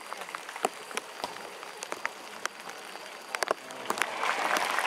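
Heavy rain pattering, with sharp drops striking close by. About four seconds in, stadium crowd clapping swells up.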